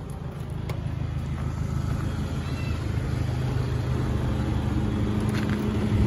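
Passenger van's engine and road noise heard from inside the cabin while driving, a steady low hum that grows slowly louder, with a couple of faint clicks.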